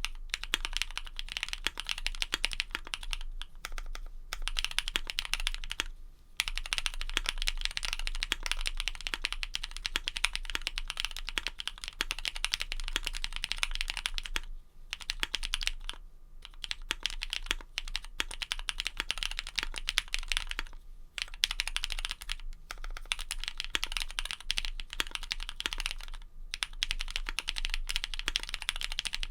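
Fast, steady typing on an AI03 Vega mechanical keyboard with EPBT Konmomo PBT keycaps and linear switches built from Cherry MX Black Hyperglide housings with Kailh red stems: a dense patter of key clacks, broken by several brief pauses.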